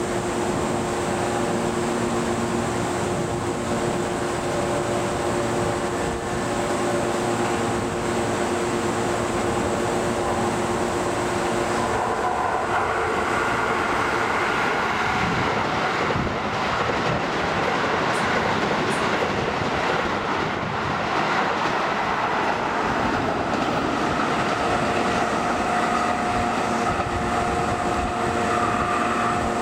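Keisei 3700-series electric commuter train running through the station, the rush of its wheels on the rails building about twelve seconds in and lasting to the end. Before it, a steady electrical hum from a train standing at the platform.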